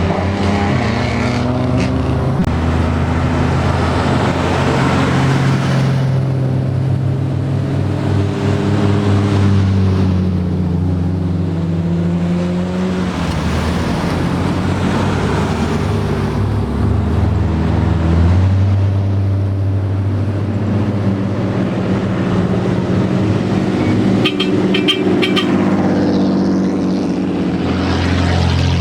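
Loud exhausts of modified old Japanese cars driving in at low speed, the engines' pitch rising and falling with the throttle.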